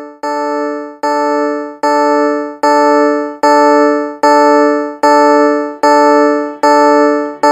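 Emergency alert alarm tone: an electronic, bell-like chord struck over and over, about every 0.8 seconds, each strike ringing and fading before the next. It grows louder over the first few seconds, then holds steady.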